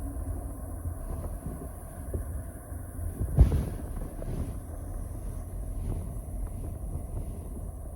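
Wind buffeting the microphone as a steady low rumble, with one sudden thump about three and a half seconds in.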